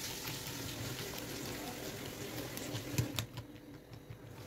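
Metal spoon stirring crisp chocolate cereal in chocolate milk in a plastic bowl: a steady run of small crackly clicks, with two sharper clicks about three seconds in.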